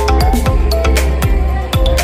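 Loud electronic music with a deep bass, a steady drum beat and a short-note synth melody.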